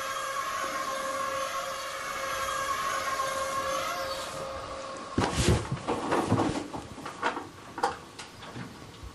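Eerie sound-design score: a steady droning chord for about five seconds, then it stops and a cluster of sharp, irregular hits and knocks follows, fading out near the end.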